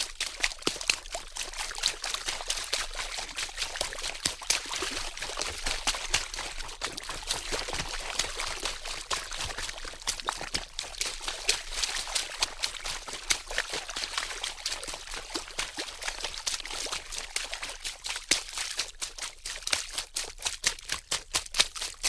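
Water splashing: a continuous rush of water broken by many small, sharp splats, busier near the start and in the last few seconds.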